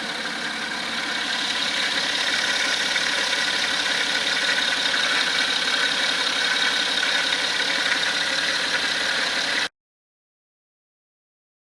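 BMW X4 30d's straight-six diesel engine idling with a gravelly, stone-rolling noise from the belt drive, the sign of a worn water-pump belt bearing. It stops abruptly near the end.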